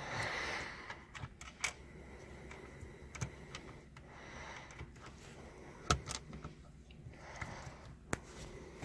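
Scattered sharp clicks and light taps of small parts and hand tools being handled at a car's shifter assembly, with one louder knock about six seconds in.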